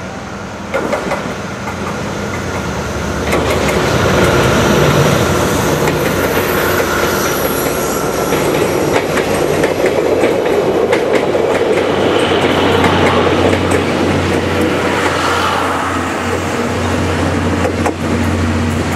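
Diesel train passing at close range: a steady rumble with its wheels clacking over the rail joints, growing louder about three seconds in.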